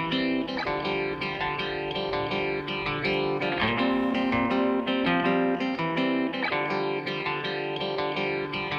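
Background music: guitar melody with plucked notes.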